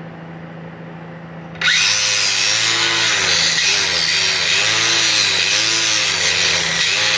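A grinder with a grit polishing pad starts up about a second and a half in and runs against an agate, its pitch rising and falling in repeated swells. This is the final polishing stage, with the pads at the high grits up to 3,000. Before it starts there is only a faint steady hum.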